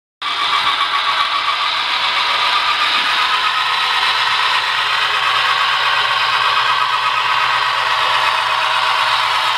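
Model passenger train of B&O E-unit diesels running along the layout's track: a steady mechanical rattling whir of wheels and motor.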